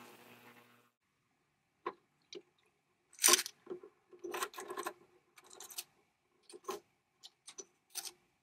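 The steady hum of an ultrasonic cleaner fades out within the first second. Then small metal carburetor parts clink and rattle against a stainless wire basket as they are handled, in scattered short knocks, the loudest about three seconds in.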